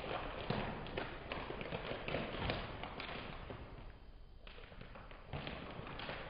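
A foil snack packet crinkling and rustling as hands pull at it to get it open, with a few sharp taps and knocks mixed in.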